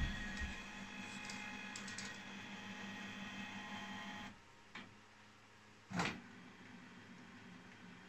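Canon inkjet printer running steadily with a mechanical whir, stopping abruptly a little past halfway. A faint click follows, then a short, sharp knock about three-quarters of the way through.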